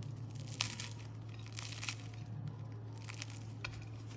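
Crisp, flaky crust of a freshly baked somsa crackling and crunching in a few short bursts as it is broken open.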